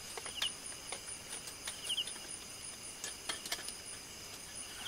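Crickets trilling steadily at night, with another insect giving a short chirp of three or four quick pulses every second or two. Over them come scattered light clicks and taps from a folding camp table being handled.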